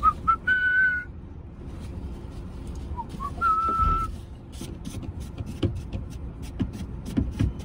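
A man whistling short phrases: a few notes stepping up to a held note at the start, then another rising to a held note about three seconds in. Light clicks and knocks of handling sound between them.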